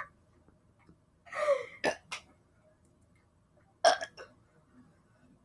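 A person burping: one burp that falls in pitch about a second and a half in, followed by two short sharp sounds and another brief loud burst near four seconds.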